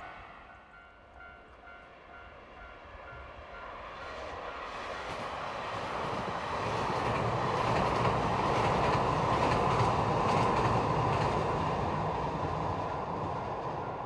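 Electric train crossing a steel girder railway bridge. The sound builds from about four seconds in, is loudest in the middle, and eases off near the end.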